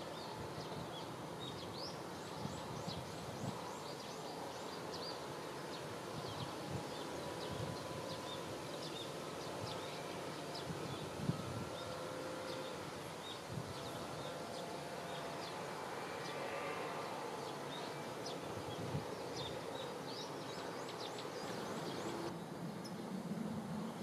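Countryside ambience: a steady background hiss with many short, high chirps scattered throughout, and a few faint thin tones now and then.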